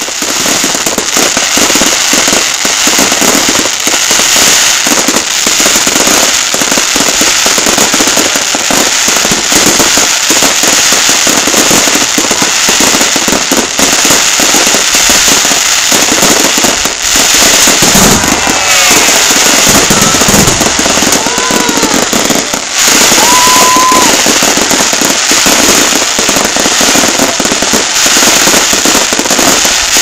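Fireworks display: continuous dense crackling and popping from bursting shells and crackling stars, with a few short whistling tones that bend in pitch about two-thirds of the way through.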